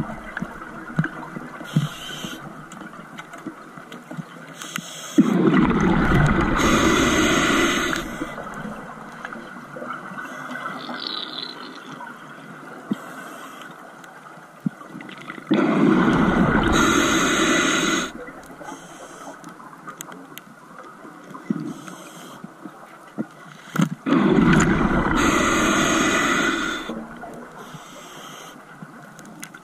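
Scuba regulator breathing: three long rushes of exhaled bubbles, about nine seconds apart, with a quieter hiss of inhaling and small clicks in between.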